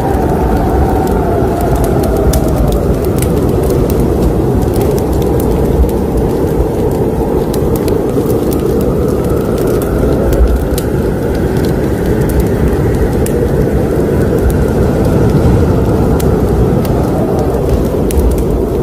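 Wood fire burning in a fireplace: a steady low roar of flames with frequent sharp crackles and pops.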